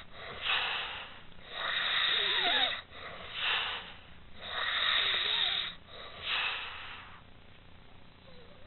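A woman snoring in deep sleep: rough, noisy breaths, long and short in turn, repeating about every three seconds. The longer breaths carry a faint wavering wheezy whistle. The snoring stops about seven seconds in.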